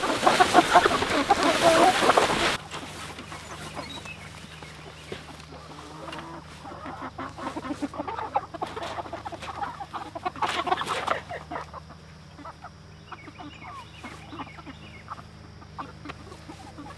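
A flock of Big Red Broiler meat chickens clucking, busiest around the middle. For the first two and a half seconds a loud rush of noise covers them and then stops abruptly.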